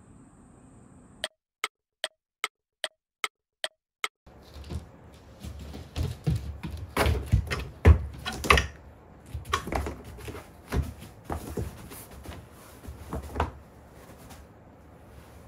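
A run of seven short clicks about half a second apart over dead silence. Then irregular thumps and shuffling as an elderly golden retriever is held up and walked across cork-look floor mats and pet pads, her paws and a person's feet knocking on the mats. The loudest thump comes about halfway through.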